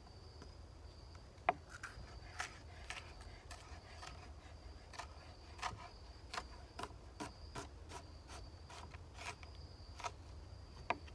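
Chef's knife chopping an onion on a plastic cutting board: a run of sharp knocks, about two a second, starting about a second and a half in. Under it, a steady high-pitched insect drone.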